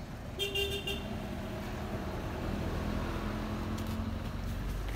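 A steady low motor-like hum, a little louder from about two seconds in, with a short high-pitched call about half a second in.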